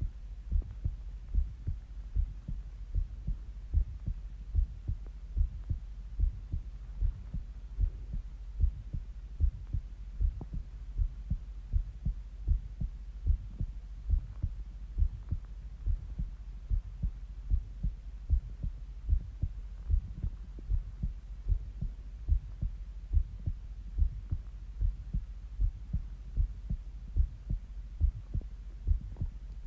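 Human heartbeat heard close up: steady, regular low thumps, about two or three a second, over a constant low hum.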